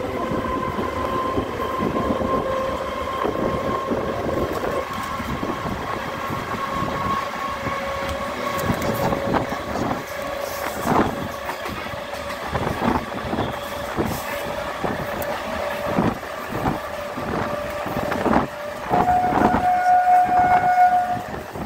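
Passenger train coach running along the track, heard from an open window: a steady running rumble and whine with irregular clacks of the wheels over rail joints. Near the end the train's horn sounds for about two seconds.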